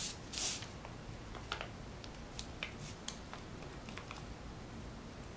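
Glue stick rubbed and dabbed along the edge of folded paper: faint, scattered soft scrapes and small ticks, the loudest a short scrape about half a second in.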